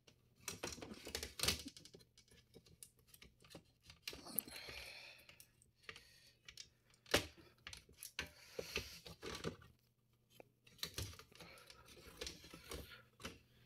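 Scattered small clicks, taps and scraping of hands working a Lenovo X250 laptop's motherboard loose from its plastic chassis.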